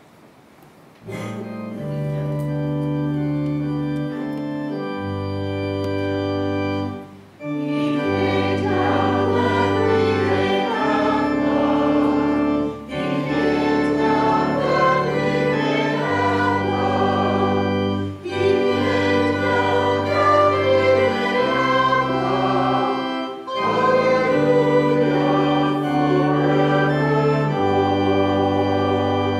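Church organ music starting about a second in: slow sustained chords in phrases, with short breaks between them.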